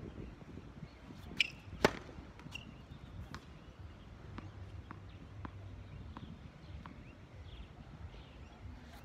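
Sharp cracks of tennis balls being struck and bouncing during serve practice on a hard court: two loud impacts about a second and a half and two seconds in, then fainter scattered knocks of balls.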